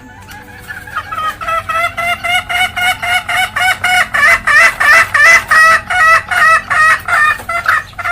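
Junglefowl hen giving the 'ngekek' cackle: a long, fast run of repeated clucking notes, about three or four a second, starting about a second in and growing louder toward the middle.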